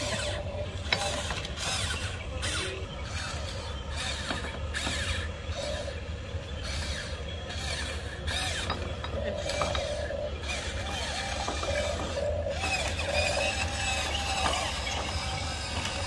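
Huina radio-controlled model excavators running: small electric motors and gearboxes whining and rattling as they drive their tracks over the bricks and work their arms. The whine wavers up and down in pitch.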